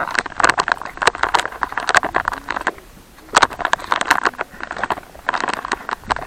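Footsteps crunching on dry ground: irregular runs of crackling steps with short pauses between them.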